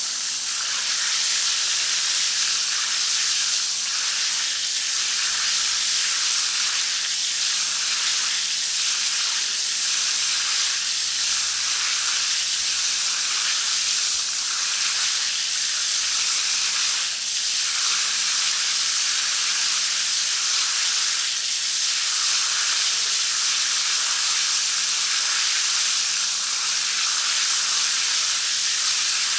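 Shower head spraying water steadily, a continuous hiss with small irregular swells as the spray hits.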